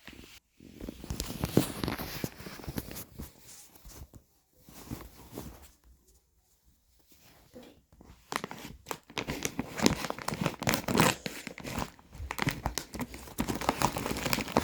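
Plastic candy packaging being torn open and crinkled by hand, in two spells with a pause of about two seconds a little before the middle.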